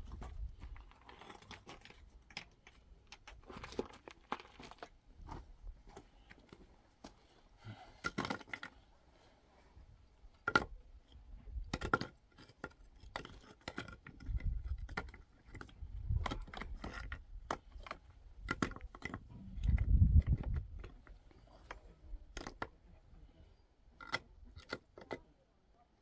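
Irregular clicks, knocks and scrapes, with a few short low rumbles about two-thirds of the way through.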